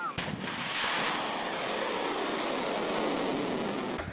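ATACMS tactical ballistic missile launching from a tracked launcher: a sudden blast, then the rocket motor's loud, steady rushing roar, which builds over the first second.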